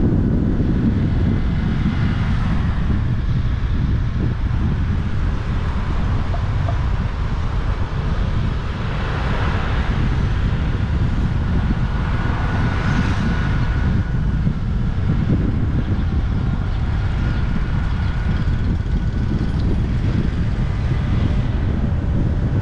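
Steady low wind rumble on the microphone mixed with road vehicle noise, with a couple of brief swells of higher-pitched noise near the middle.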